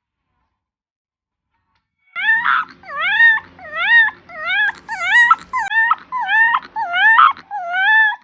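A pet animal calling over and over, about a dozen short swooping cries, each rising then falling in pitch, roughly two a second, starting about two seconds in.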